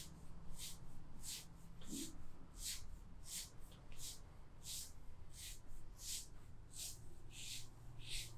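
Hands rubbing over skin or cloth in quick, even massage strokes, each stroke a short hiss, about three every two seconds, over a steady low hum.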